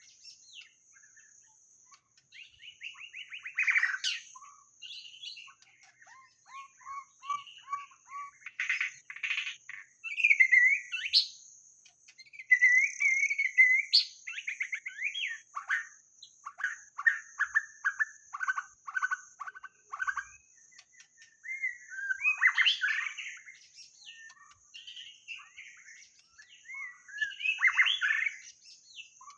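White-rumped shama singing a long, varied song of rich whistles, fast repeated notes and rattling chatter, in phrases a second or two long with short pauses between them, over a faint steady high-pitched tone.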